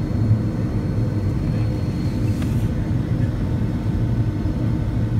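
Boeing 757-200 taxiing, heard inside the cabin from a seat over the wing: the jet engines run at a steady low hum over a dense rumble.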